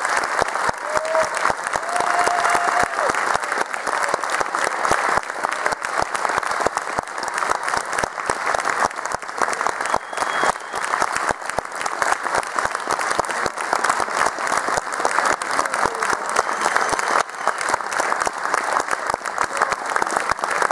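Audience applauding: dense, steady clapping from a large crowd, without a break.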